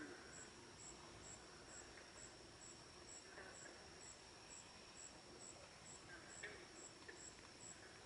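Faint night insects chirping, crickets among them: a steady high trill with a regular high chirp about twice a second over it, and two faint short lower calls in between.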